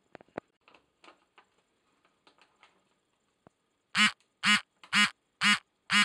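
African grey parrot giving five short, loud calls in a row, about two a second, near the end. Faint clicks and rustling come before the calls.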